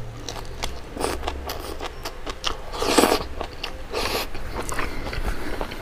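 Close-miked chewing of a mouthful of raw leafy greens with sambal: wet crunching with many small crisp clicks, and one louder moment about three seconds in.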